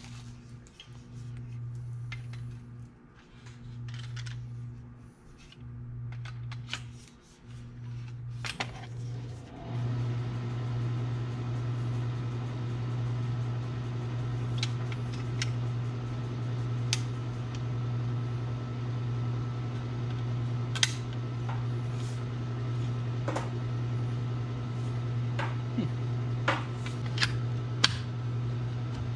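Scattered light clicks and taps of a Tollamark MD-830 metal detector's plastic fittings and metal shaft being handled and fitted together. Under them runs a steady low hum, which grows louder and steadier about ten seconds in.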